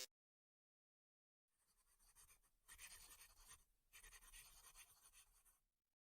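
Faint scratching in three short stretches, starting about two seconds in.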